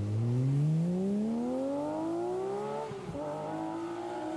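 Car engine accelerating hard: the revs climb steadily for about three seconds, drop at a gear change, then climb again.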